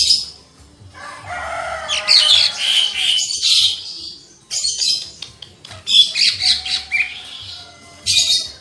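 Green leafbird (cica ijo) singing in loud, rapid, chattering phrases full of quick pitch glides, in several bursts with short pauses between them.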